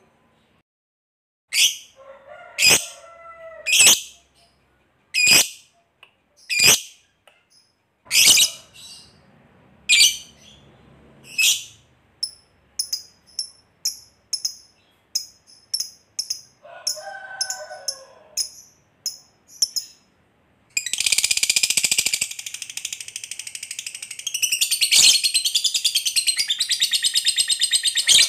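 Lovebird calling: sharp single shrieks about once a second, then quicker, softer chirps. About 21 s in, it breaks into a long, continuous, rapid chattering trill, the 'ngekek panjang' that fanciers prize.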